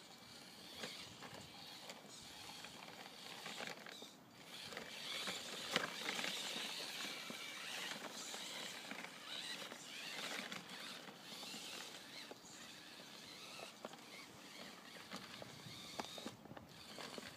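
Homemade 1:10-scale RC rock crawler driving through snow: faint, irregular crunching and crackling of the tyres on snow, with scattered clicks.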